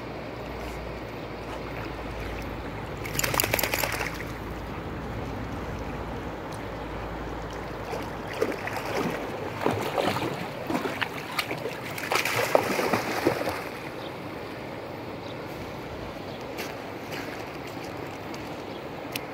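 A golden retriever splashing through shallow water over a steady rushing background: one brief burst of splashing about three seconds in, then a run of irregular splashes from about eight to thirteen seconds as the dog wades near the shore.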